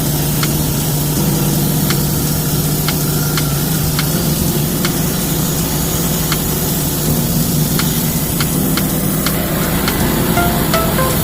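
Engine of a homemade band sawmill running steadily, with a light regular tick a little more than once a second.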